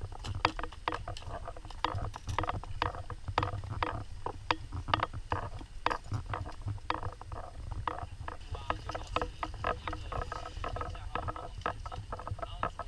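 Footsteps and clattering scuba gear of divers walking in a group: many irregular clicks and knocks, a few each second, over a steady low rumble.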